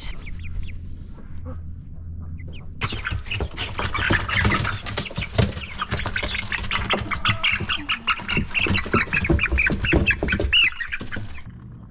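A flock of farm poultry squawking and calling loudly over one another. The noise starts about three seconds in and stops abruptly near the end.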